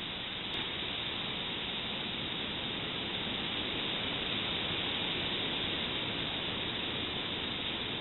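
Steady, even hiss from a trail camera's built-in microphone, with one faint click about half a second in.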